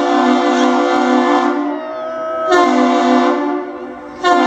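Ship's horn on the cargo ship Vlieborg sounding long blasts of a captain's salute. There are two blasts of about two seconds and a second and a half, and a third begins near the end. Each blast is loud, with a low, slightly wavering tone.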